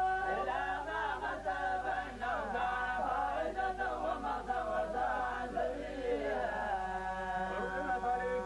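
Men chanting Quran recitation in Arabic, drawn out and melodic, with more than one voice sounding at once.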